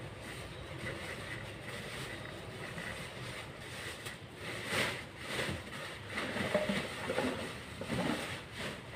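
Discarded items being rummaged through by hand: irregular rustling and light knocks that grow busier about halfway through, over a steady background hum.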